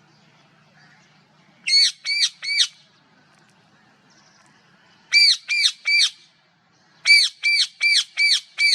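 Parrot calling in quick runs of short calls, each rising then falling in pitch: three calls, a pause, four more, another pause, then six in a row.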